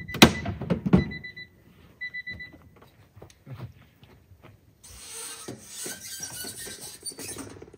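A Stark Varg electric dirt bike being unloaded from a mini truck: a couple of sharp knocks, two short electronic beeps, light clanks of an aluminium ladder ramp, then a hiss near the end as the bike rolls down the ramp.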